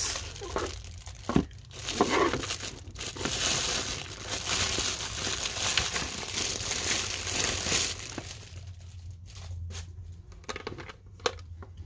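Clear plastic wrap crinkling and rustling as it is pulled off a nail drill control box by hand, dense for most of the time, then quieter with a few light clicks near the end.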